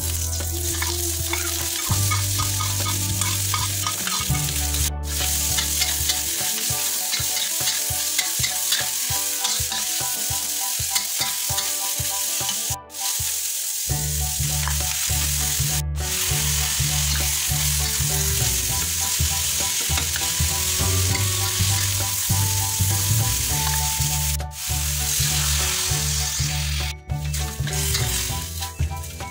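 Sliced onions, then minced chicken breast tipped in about halfway through, sizzling in hot oil in a steel wok and being stirred with a spatula.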